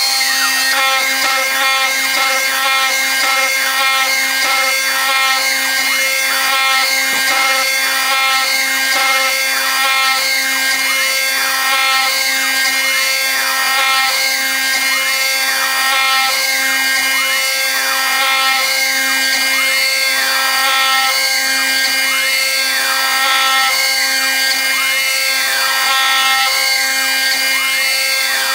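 CNC router spindle with a small end mill conventional-milling a circular pocket in aluminum, at 32.5 in/min feed and 0.03 in depth of cut. It gives a steady spindle whine, and the cutting tone sweeps up and down about once every second and a half as the cutter goes round. A compressed-air chip blast hisses steadily over it.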